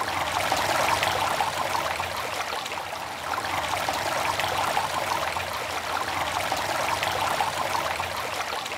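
Steady rush of running water, like a flowing stream.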